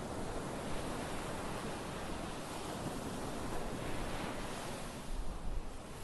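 Small waves breaking and washing up over a sandy beach, a steady hiss of surf and foam running over wet sand. A low rumble of wind on the microphone swells about five seconds in.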